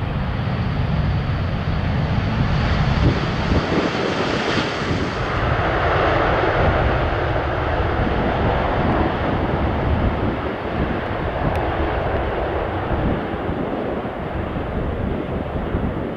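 Boeing 747-8F freighter's four GEnx turbofan engines running as the jet lands and rolls out on the runway with spoilers raised. The loud, broad rushing jet noise swells about five seconds in and stays strong.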